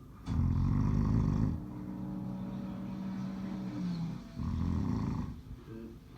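A man snoring: two long, heavy snores about four seconds apart, with a quieter, steadier sound between them.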